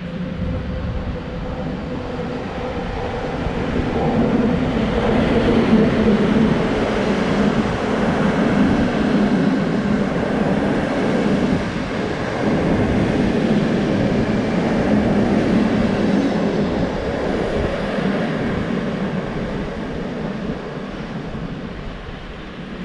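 PKP Intercity passenger train, hauled by an electric locomotive, passing through a station at speed. The noise builds as the locomotive approaches. It stays loud for over ten seconds as the coaches rumble past, then fades as the train moves away.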